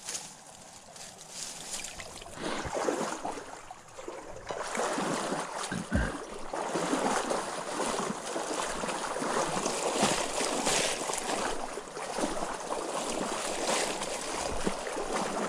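Water splashing and reeds swishing as someone moves through a shallow marsh, a run of uneven splashes that thickens a few seconds in, with one low thump about six seconds in.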